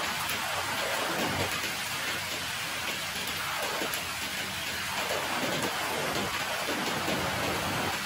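Steady rain falling on a wet concrete yard.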